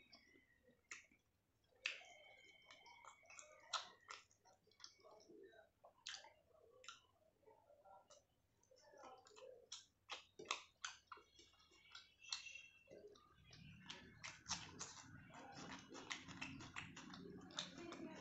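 Faint chewing and mouth sounds of someone eating rice and curry: irregular wet smacks and clicks, getting denser near the end.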